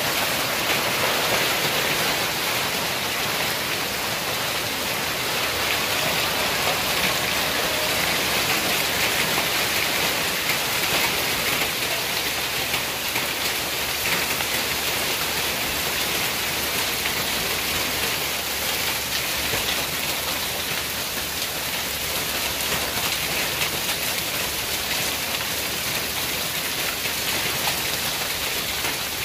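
Heavy rain mixed with hail falling on wooden tables, benches and planter boxes: a steady, dense hiss.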